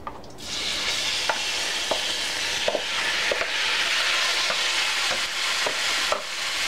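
Marinated beef strips sizzling in a hot stainless steel sauté pan, the hiss starting suddenly about half a second in, while a wooden spoon stirs them with light knocks and scrapes against the pan.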